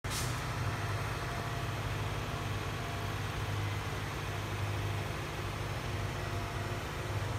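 A steady low mechanical hum with an even wash of noise over it, like a motor or engine running, unchanging throughout.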